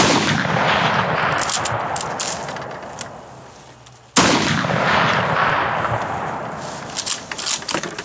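Two shots from a scoped Mosin-Nagant bolt-action rifle in 7.62x54R, about four seconds apart, each report rolling away and fading over about three seconds. Short sharp clacks follow each shot as the bolt is worked.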